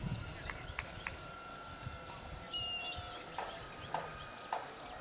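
Birds calling in open air: a few short clicks in the first second, a brief high chirp about halfway through, then a run of short hollow knocking notes about two a second.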